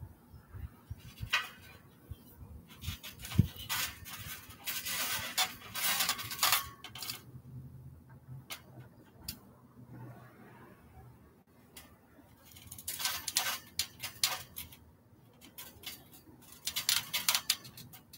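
Trampoline springs and frame clinking and creaking in several short bursts of light metallic jingling as a person shifts, stands and climbs about on the mat.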